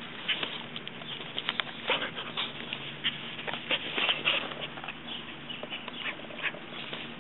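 Siberian Husky puppy chewing and tearing at grass: irregular crisp crunches and clicks, several in quick succession around the middle.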